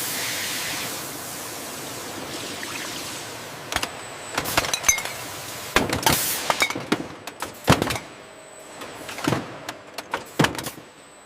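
A loud hiss like a release of air or steam, fading over the first few seconds, then a run of irregular sharp mechanical clanks and clinks.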